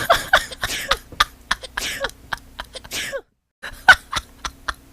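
A person sneezing several times in quick succession, each sneeze a short sudden burst that falls in pitch.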